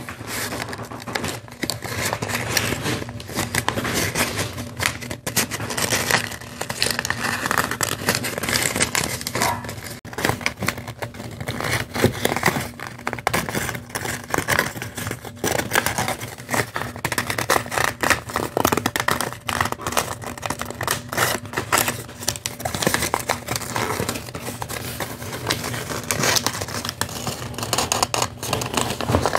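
Folded paper rustling and crinkling as it is handled, pressed and tucked, with an irregular run of dry scrapes and crackles.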